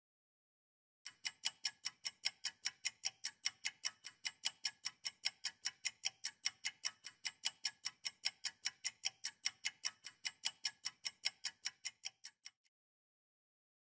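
Clock-ticking sound effect for a quiz countdown timer: a fast, even run of sharp ticks that starts about a second in and stops shortly before the end.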